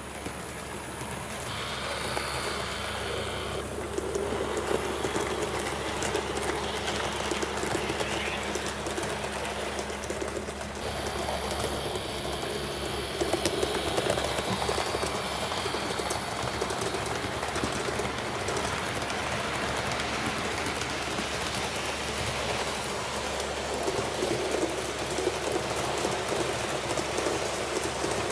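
Model train running along the track, with a steady rolling rattle of its wheels on the rails.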